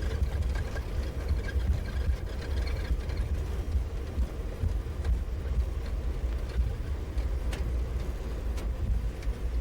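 Airbus A310 cockpit during the landing rollout: a steady low rumble from the wheels on the runway and the engines in reverse idle as the wheel brakes slow the aircraft. Two faint clicks come about a second apart near the end.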